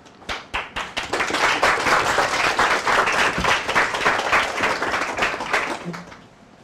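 A small group of people applauding, the clapping building over the first second and dying away near the end.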